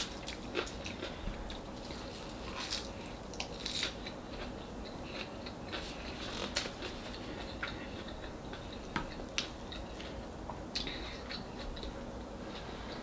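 A person chewing and eating by hand, with scattered small crunches and clicks as salad greens and rice are picked up with the fingers.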